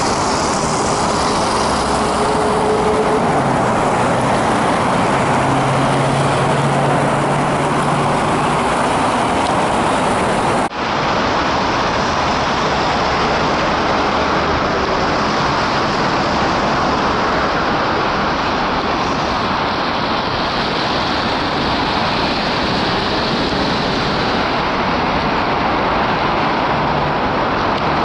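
Steady road traffic on a busy city avenue: cars, buses and trolleybuses passing, with a continuous rush of tyre and engine noise. The sound drops out briefly where the recording cuts, about ten seconds in.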